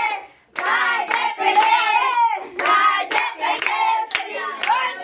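A group of people singing a birthday song together and clapping along in rhythm, with a brief break about half a second in.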